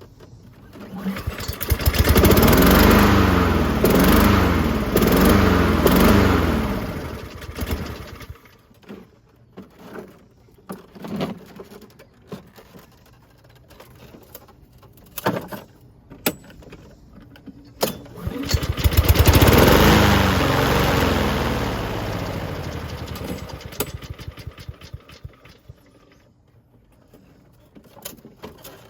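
Walk-behind lawn mower's small petrol engine running in two spells. In the first, its pitch swings up and down about once a second. The second starts loud and dies away gradually over several seconds. Light clicks and knocks come in the quieter stretch between them.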